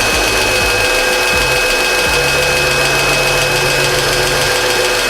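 Mercedes-Benz M112 V6 idling steadily, with one newly fitted hydraulic lifter ticking distinctly. The tick is a lifter that has not yet filled with oil and needs to run for a while.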